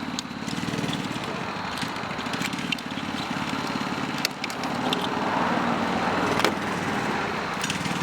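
A steady low mechanical drone, with a few sharp clicks from the plastic ignition-coil connectors on a Volkswagen 1.4-litre engine being unclipped one after another.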